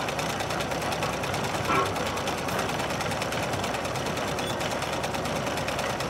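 Sewing machine running with a rapid, steady mechanical clatter, with a short squeak a little under two seconds in.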